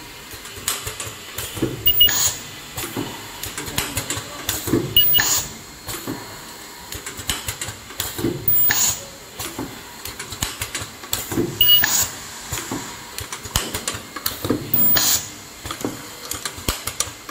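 Automatic plastic zipper film welding machine running, its clatter going in a cycle that repeats about every three seconds: a burst of sharp clacks at each stroke, with lighter ticking in between.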